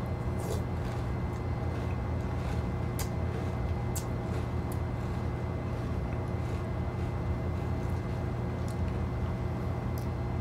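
Steady low machine hum with a few faint sharp clicks of a metal spoon against a bowl.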